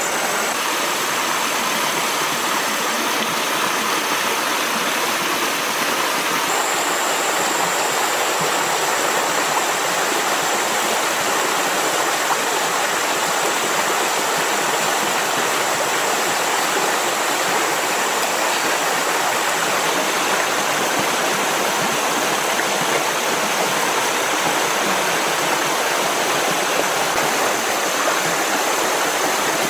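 Steady, even rushing of flowing water, with a thin high steady tone above it that changes slightly a few seconds in.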